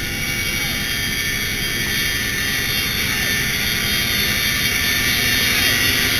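Cabin noise of a CH-47 Chinook tandem-rotor helicopter in flight: a steady turbine whine and rotor noise that grows gradually louder.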